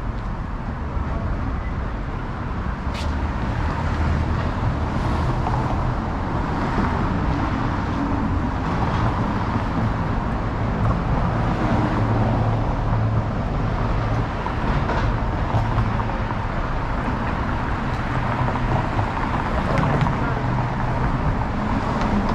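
City street traffic: motor vehicles passing with a steady rumble of engines and tyres.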